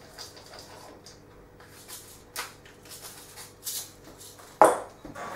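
Hand pepper grinder being twisted over a pan, a run of short dry rasping grinds. There is one sharp knock a little over four seconds in.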